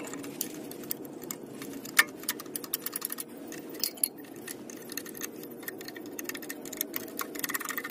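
Rapid, irregular metallic clicking and clinking of an 8 mm wrench working the small nuts that clamp the blade in a Delta Shopmaster TP300 planer's cutterhead, loosening them. The clicks come in quick runs, densest near the end.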